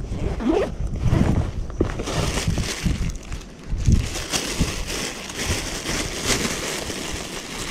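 Handling of a fabric sling bag, then from about four seconds in a thin plastic bag rustling and crinkling as it is pulled out and opened.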